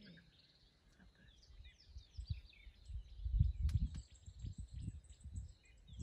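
Many small birds of a mixed feeding flock chirping and twittering. From about two seconds in, an uneven low rumble grows beneath them and becomes the loudest part, with a single sharp click near the middle.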